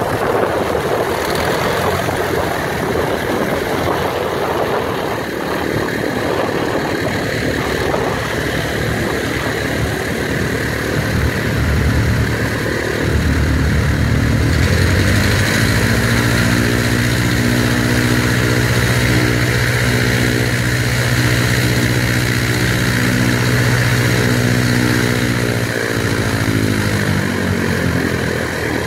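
de Havilland Tiger Moth biplane's four-cylinder Gipsy Major engine and propeller running on the ground. About halfway through it is opened up to higher, steady revs and held there, then throttled back near the end, the note falling away.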